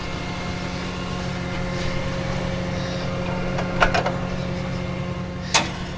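Truck engine idling steadily, with two short knocks about four and five and a half seconds in.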